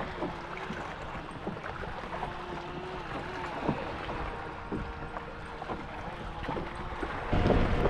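Wind on the microphone and water lapping against a kayak hull, with scattered small knocks; it gets louder about seven seconds in.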